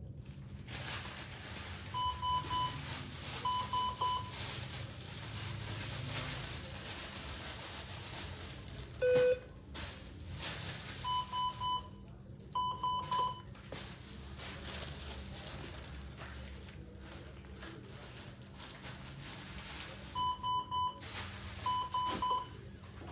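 Medical monitor alarm beeping in groups of three short, high beeps, two groups close together, repeating about every nine seconds. A single lower beep about nine seconds in is the loudest sound. A steady hiss and low hum run beneath.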